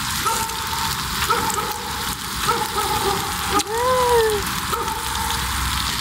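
Thin slices of oxtail sizzling on a grill plate over a wood-burning stove: a steady hiss with many small crackles. A short hummed "mm" from the person eating comes about four seconds in.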